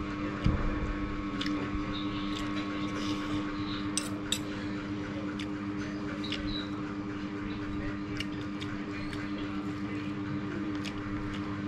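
Spoon and fork clicking and scraping against a plate and bowls while someone eats rice and soup, the taps scattered a second or so apart over a steady low hum.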